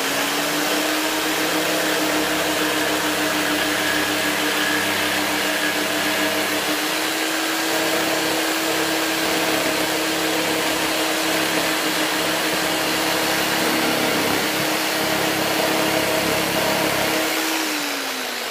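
Electric jigsaw running steadily as its blade cuts through clear acrylic sheet. Near the end the motor is switched off and winds down, falling in pitch.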